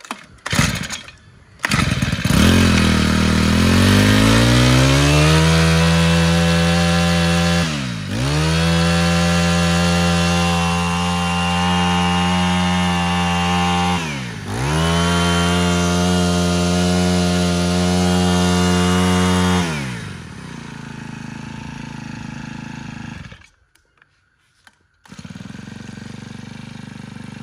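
Honda GX25 25cc four-stroke brush cutter engine starting about two seconds in, revving up to high speed and held there, with the throttle let off briefly twice, then dropping back to a low idle near the end.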